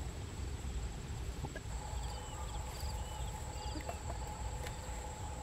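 Open-field ambience: a steady high insect drone over a low rumble, with a few short bird chirps in the middle and a steady mid-pitched hum that comes in about a third of the way through.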